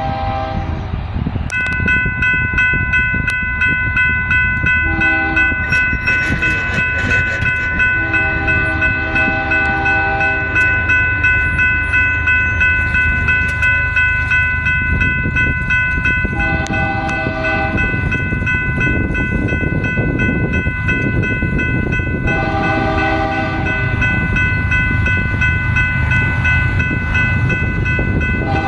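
Approaching freight locomotive's Nathan K5HL air horn, its third chime dead, sounding a series of short and long blasts for the crossing. From about a second and a half in, a grade-crossing warning bell rings continuously under the horn.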